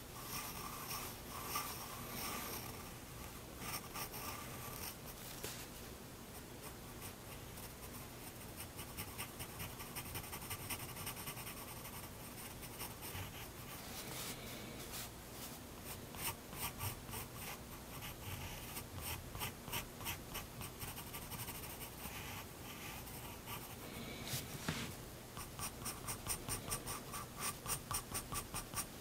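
Prismacolor Turquoise 7B graphite pencil scratching on sketchbook paper in short strokes, speeding up near the end into quick repeated strokes of about three or four a second. There is one sharper tick a little past two-thirds of the way through.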